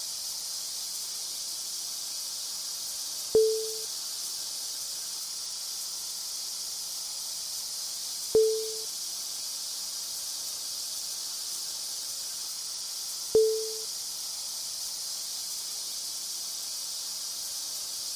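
Steady high-pitched hiss, with a short low ping that starts with a click repeating evenly every five seconds, three times.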